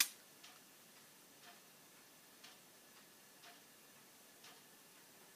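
Faint ticking of a clock, about once a second, with one sharper click right at the start.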